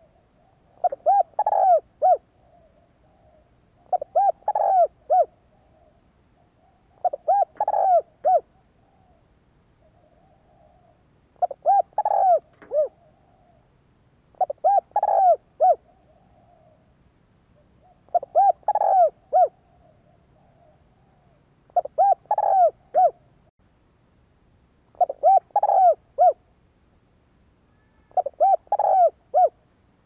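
Spotted dove cooing: a repeated short phrase of several coos, nine phrases about three and a half seconds apart, with softer cooing in between.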